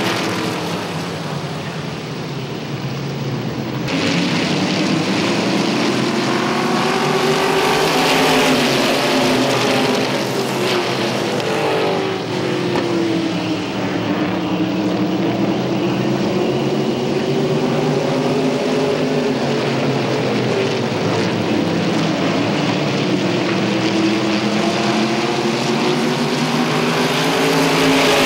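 Several IMCA Modified stock cars' V8 engines running together at race speed, overlapping, their pitch rising and falling as the cars accelerate and lift off.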